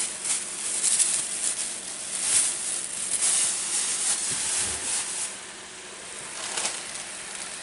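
Thin clear plastic bag crinkling and rustling as it is handled, in irregular bursts for about five seconds, then quieter, over a steady hiss.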